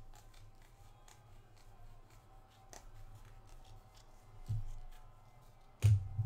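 Panini Prizm trading cards flicking and sliding against one another as a pack is thumbed through by hand, making many small clicks, with two dull thumps near the end.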